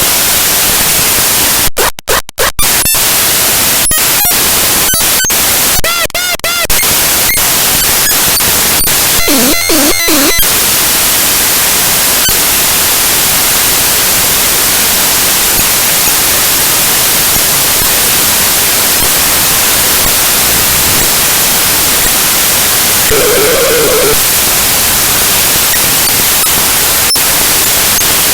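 Raw image-file data played back as audio by Binary Waterfall: loud, harsh static-like hiss. Clicks and dropouts break it up in the first few seconds, and short warbling tones come through about ten seconds in and again near the end.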